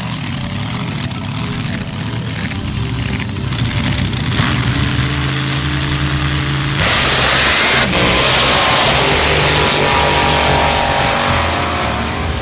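Drag race car engine running hard at high revs. It gets louder and brighter about seven seconds in, then its pitch dips and climbs again near the end.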